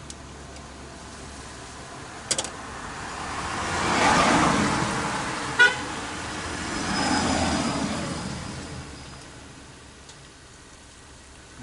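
Two road vehicles pass one after the other, each swelling and fading, with a short horn toot between them and a sharp click just before the first.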